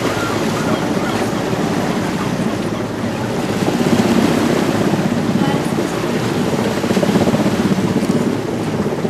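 Large helicopter's rotor and turbine engines, passing low and close, a steady rapid beating chop that swells a little about halfway through and again near the end.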